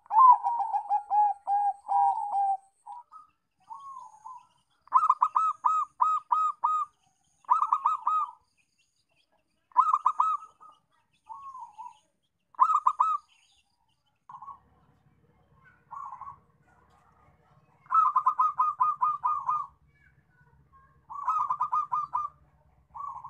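Zebra doves (perkutut) singing: phrases of rapid staccato cooing notes, repeated with short pauses between them. The first phrase is lower and rolling. A faint low hum runs under the second half.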